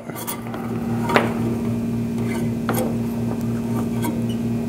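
A steady low electrical hum with a pulsing undertone, and two light clicks, about a second in and near three seconds, as the plastic lamp connector cap of a stainless-steel UV water sterilizer is pushed down and turned to lock.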